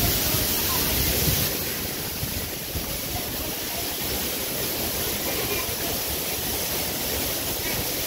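Steady rushing of water from a jungle waterfall and its rocky stream, with faint voices now and then.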